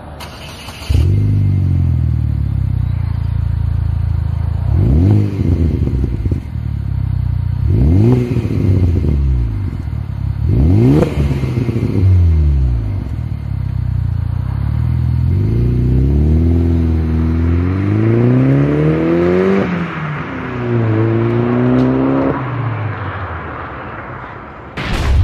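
2009 Chevy Cobalt SS's turbocharged four-cylinder through a MagnaFlow cat-back exhaust: idling with three quick revs, then pulling away. The revs climb, drop at a gear change and climb again, and the exhaust note fades as the car drives off.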